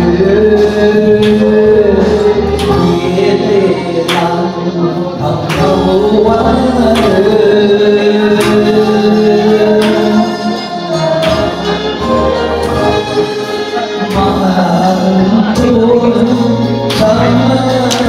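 A man singing a slow Chinese song into a microphone over a recorded backing track, amplified through the hall's PA. Long held notes sit over a soft beat that falls about every second and a half.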